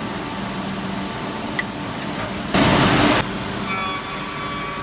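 Automatic wood copy shaper machine running just after start-up, with a steady mechanical noise. A loud burst of noise, just over half a second long, comes a little past halfway, and a steady whine sets in near the end.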